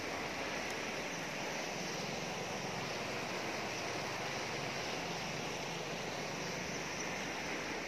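Steady rush of a wide river flowing fast past a barrage's concrete piers, an even unbroken noise.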